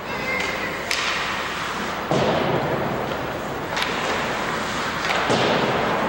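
Ice hockey play in an arena: a steady hiss of skates on the ice, broken by a few sharp clacks of sticks and puck and two heavier thumps about two and five seconds in.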